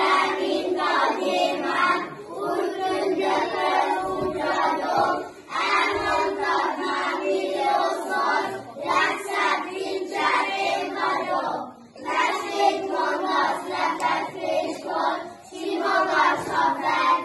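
A group of young schoolchildren singing together in unison, phrase by phrase, with short breaks between phrases.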